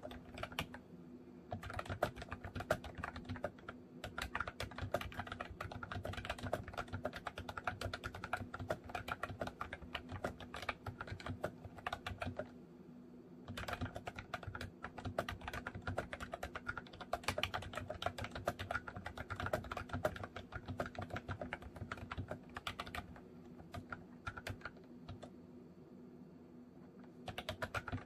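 Fast typing on a MOFii Retro Style Candy keyboard, dense runs of key clicks with a short pause about halfway and lighter, sparser typing near the end.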